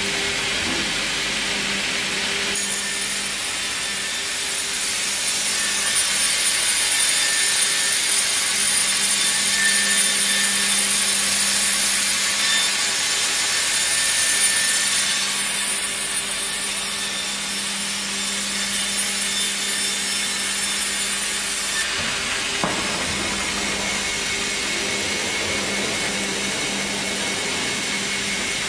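A band sawmill cutting through a log on its carriage, with the debarker liner scoring a line through the bark just ahead of the band saw blade. The cutting noise starts about two and a half seconds in, swells in the middle and stops about 22 seconds in. A steady electric motor hum runs under it.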